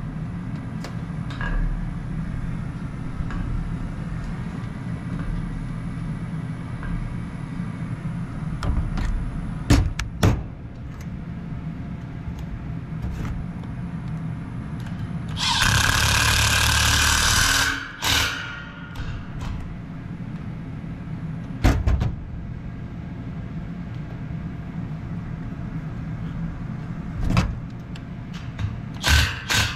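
Cordless impact driver running in one loud burst of about two seconds, midway through, driving a screw that fastens the fan guard to a new condenser fan motor. A few sharp knocks of handling sound over a steady low hum.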